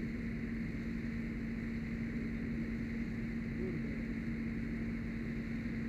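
Fire engine running steadily at the scene, a constant droning hum with a low rumble underneath.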